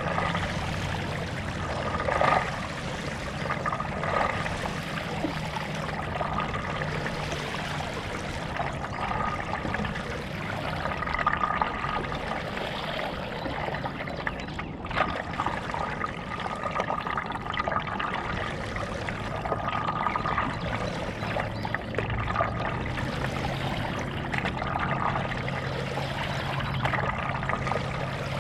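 Stand-up paddle strokes in lake water: the blade dipping and water trickling and dripping off it, repeating about every two seconds, over a low steady hum.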